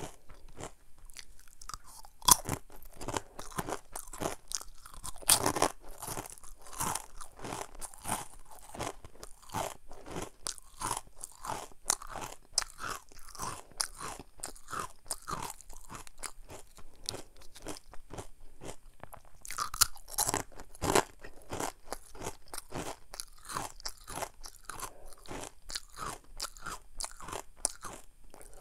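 Someone crunching and chewing crisp ring-shaped Jjanggu churro snacks, in a steady run of irregular crisp crunches with a few sharper, louder bites.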